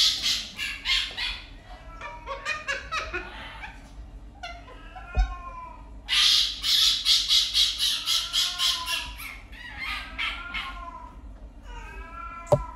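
Fennec fox giving rapid, high-pitched chattering calls in three bursts of several pulses a second, with short rising-and-falling whining calls between the bursts.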